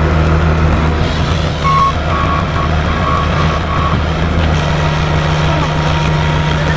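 Skid steer's diesel engine running steadily, with a backup alarm beeping repeatedly for about two seconds, starting a couple of seconds in.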